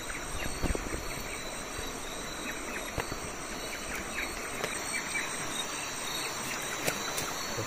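Steady riverside background hiss with a few faint short chirps, and soft clicks and rustles from a nylon cast net with lead sinkers being gathered by hand.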